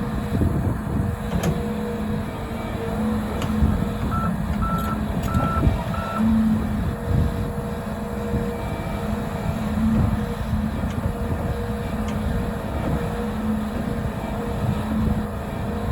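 Volvo EC300E excavator's diesel engine running steadily under hydraulic load, with repeated low thuds of the bucket tamping soil on the slope. About four seconds in, four short evenly spaced alarm beeps sound.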